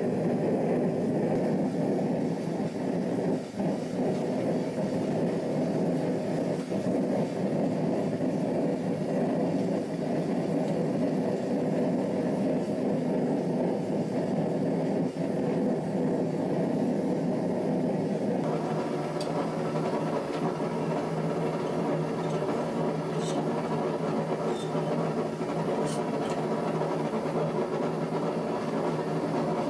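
Gas forge burner running with a steady roar; about two thirds of the way through the sound turns hissier. A few faint clicks sound near the end.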